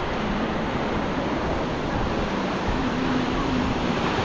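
Ocean surf and wind making a steady rushing noise.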